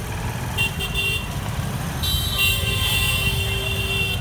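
Busy street traffic of scooters, motorbikes and cars with a steady engine rumble; a vehicle horn gives a few short toots about half a second in, then a long horn blast starts about two seconds in.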